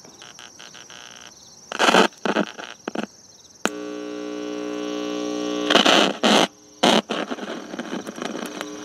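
Eico 147A signal tracer's speaker putting out hiss and loud bursts of static crackle as its knobs are turned to the RF side. Around the middle, a steady buzzing hum with several overtones swells for about two seconds, then cuts off into another burst of static.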